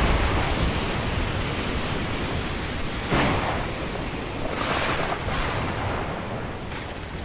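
Stormy ocean surf and wind: a steady roar of waves, swelling as waves break about three seconds in and again near five seconds, then fading out near the end.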